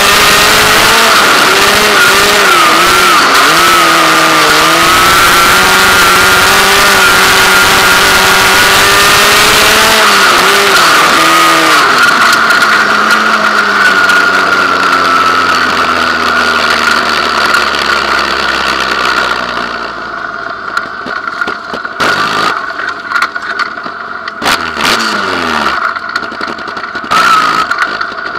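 Dirt-track sprint car engine heard onboard, running at high revs with a wavering pitch for about ten seconds, then winding down in a long falling pitch as the car slows off the track. From about twenty seconds in the engine turns over low and quieter, with a few sharp knocks as the car rolls slowly over rough ground.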